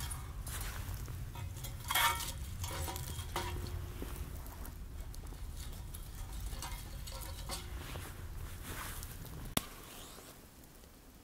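Camp cooking gear being handled: light clinks and rustles of utensils and dishes over a low steady rumble, ending in one sharp click near the end, after which it goes quieter.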